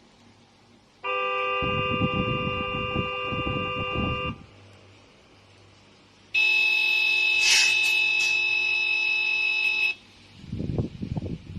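ESS ONE PLUS engine sound simulator for RC cars playing horn effects through its small speaker. One horn is held about three seconds with a low engine rumble under it. After a pause a second, higher horn is held about three and a half seconds. Near the end, uneven low engine rumbling starts.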